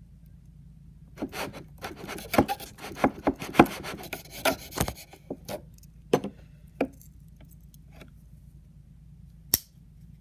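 A metal knife blade scraping and cutting a soft blue waxy block on a wooden cutting board: a run of quick scraping strokes for a few seconds, then a few separate taps and one sharp click near the end.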